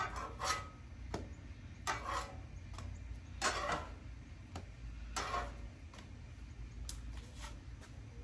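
Metal cooking utensils scraping and tapping on the steel top of a Blackstone propane griddle: a run of short, irregular scrapes and clicks, the longest about three and a half seconds in, over a low steady rumble.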